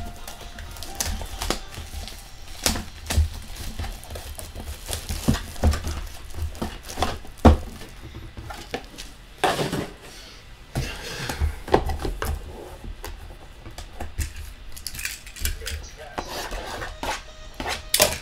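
Sports trading cards and their packaging handled on a tabletop: irregular taps, clicks and light knocks with brief rustles.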